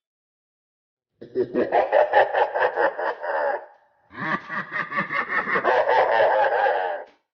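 Laughter: two long runs of rapid, rhythmic ha-ha pulses with a short break between them, starting and stopping abruptly after about a second of silence.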